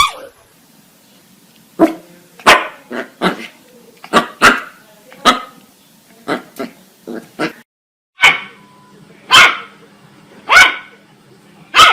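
Puppy barking in short, high-pitched yaps: a quick run of about a dozen, then after a brief silent break, four single yaps about a second apart.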